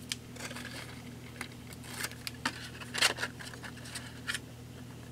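Cardstock being folded and handled: scattered light rustles and crisp taps as paper flaps of a box are creased and pressed closed, the strongest about three seconds in, over a faint steady hum.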